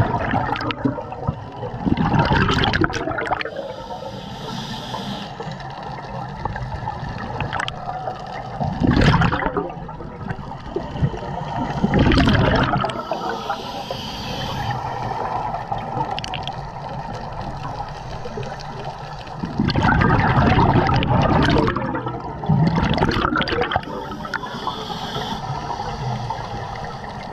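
Scuba regulator breathing underwater: exhaled air bubbles out in about five loud bursts a few seconds apart, with a steady watery wash between them.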